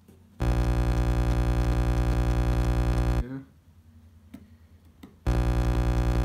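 A loud, steady electronic buzz with many overtones and a fast flutter, sounding twice: for nearly three seconds, then again for about two seconds after a short gap.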